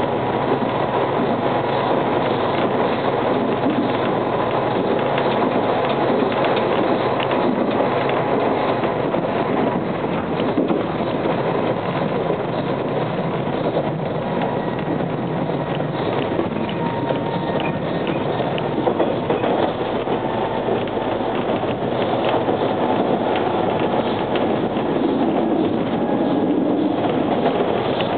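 TTC H4 subway train running along the track, heard from inside the car: a steady rumble of wheels on rail with a faint steady whine over it.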